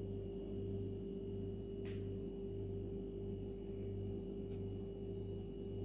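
A steady hum made of several held tones, one mid-pitched tone the strongest, with two faint ticks.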